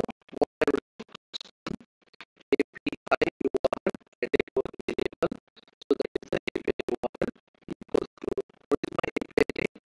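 Computer keyboard typing: rapid, irregular keystroke clicks, with a short pause about two seconds in.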